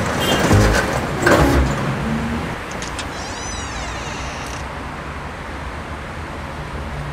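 Steady low background rumble of outdoor ambience, with a couple of knocks in the first two seconds and a brief high warbling squeal about three seconds in.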